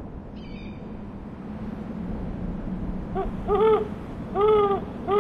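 Women's voices calling out from the top of the tower: about four short shouts that rise and fall in pitch, coming in the second half over a steady low background noise. They are calling for help after being stranded.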